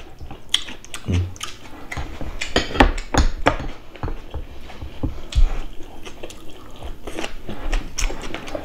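Close-miked eating at a table: chewing and mouth sounds, with chopsticks and spoons clicking and tapping against bowls and plates in a run of short, sharp clicks.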